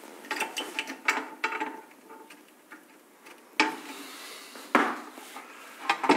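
Light clicks and taps of amplifier kit parts being handled and fitted together, a quick run of them in the first couple of seconds, then three sharper knocks about three and a half, five and six seconds in.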